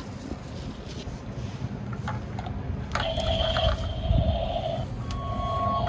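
Rumbling and a few clicks of plastic toy trucks being handled, then a toy truck's electronic sound effect: buzzy steady tones starting about three seconds in, joined by a higher steady tone near the end.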